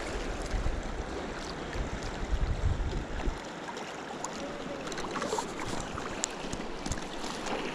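Steady rush of the river current, with wind buffeting the microphone as a low rumble for the first three seconds or so.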